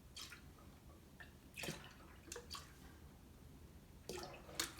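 Cleaning solution being poured into an ultrasonic cleaner's tank: a few short, faint splashes and drips of liquid, with quiet between them.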